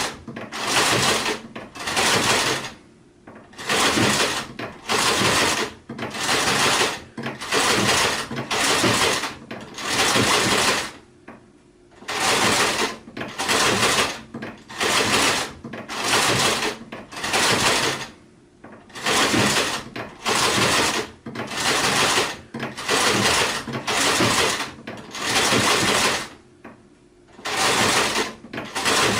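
Sewing machine stitching in short spurts, about one or two a second, each lasting under a second. Pauses of about a second break the run every seven or eight seconds.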